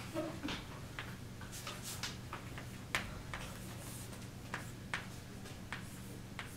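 Chalk tapping and scraping on a chalkboard while numbers are written: irregular sharp clicks, the loudest about three seconds in and another near five seconds, over a steady low hum.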